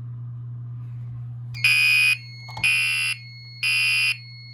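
Gentex Commander 3 mechanical fire alarm horn sounding three half-second blasts a second apart, the temporal-three evacuation pattern, signalling that the panel is in alarm. A fainter steady high tone carries on under and after the blasts.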